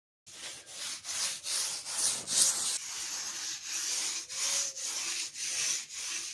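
Sanding sponge scrubbed back and forth over a hardened lime-plaster washbasin, a quick run of rasping strokes, about two to three a second.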